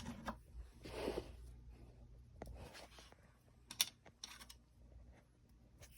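Faint scattered clicks and light scraping of small screws and washers being handled and screwed back into an amplifier's panel, the sharpest click about four seconds in.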